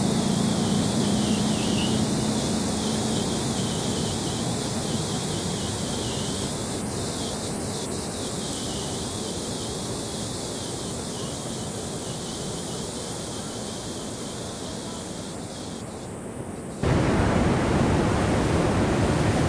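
Floodwater rushing through an open reservoir sluice gate: a steady rushing noise that slowly grows fainter. About seventeen seconds in it cuts off abruptly and is replaced by a louder rush of water and wind.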